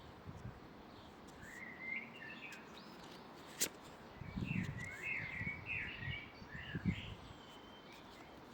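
Small birds chirping and twittering in short bursts, with a sharp click about three and a half seconds in and a couple of soft low bumps over a faint background hiss.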